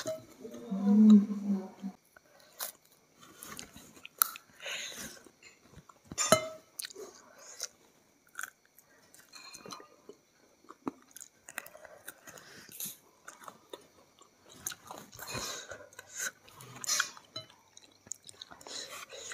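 Close-miked chewing and mouth sounds of a person eating fried chicken and rice by hand: irregular small clicks, smacks and crackles. A short vocal sound about a second in.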